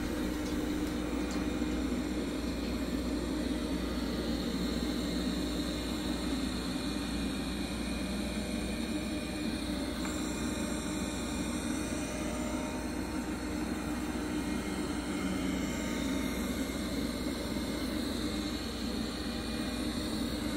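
Roborock Q Revo robot vacuum running on carpet: a steady machine hum from its suction fan and brushes.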